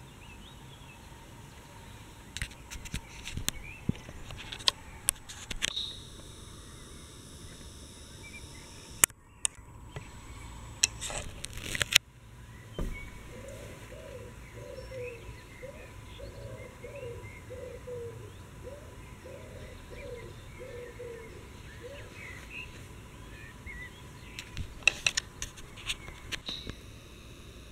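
Birds calling: faint chirps throughout, and a run of about a dozen short, evenly repeated low notes in the middle. Sharp clicks and knocks, the loudest sounds, come in clusters near the start, around the middle and near the end.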